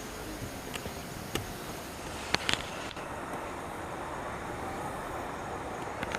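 Steady outdoor background noise with no music in it, broken by a few short sharp clicks in the first half.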